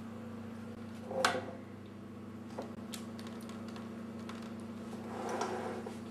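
A spoon knocking once sharply and then clicking and scraping against a baking tin while spreading tomato sauce over eggplant slices, over a steady low hum.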